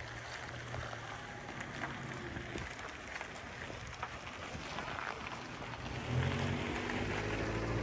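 Tour coach engine running, heard from inside, under a steady crackling hiss. The engine note grows louder about six seconds in.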